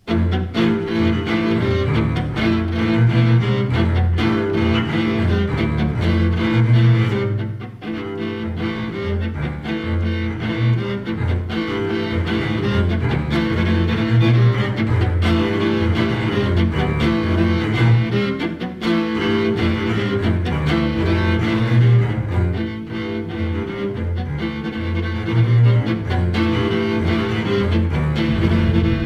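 Live ensemble music that starts abruptly, with sustained low notes moving in a repeating pattern.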